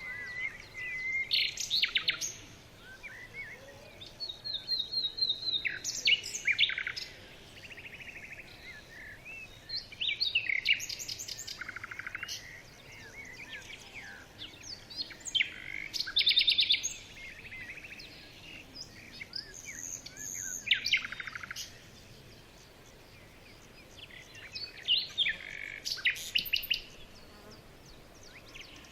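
Small songbirds chirping and trilling, high-pitched, in short spells every few seconds.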